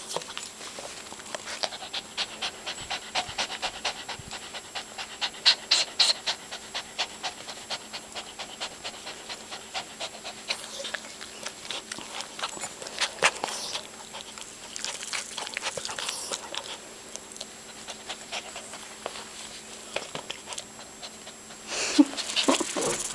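Papillon panting rapidly in excitement, a quick run of short breaths, with a louder brief outburst near the end.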